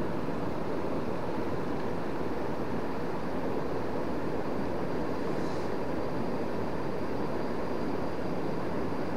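Steady rushing of a river running high and fast in flood.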